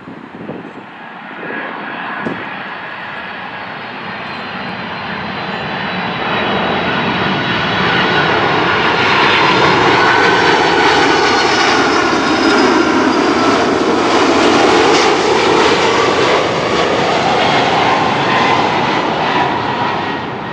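Jet engines of an Amazon Prime Air Boeing 767 freighter on landing approach, passing close overhead: the noise swells over the first several seconds, stays loud through the middle with a whine that slides down in pitch, then eases off near the end as the jet heads for touchdown.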